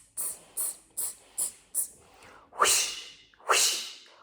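A voice making rhythmic hissing mouth sounds: five short, high 'tss' hisses at about two and a half a second, then from about two and a half seconds in, louder, fuller 'whoosh' blows about one a second.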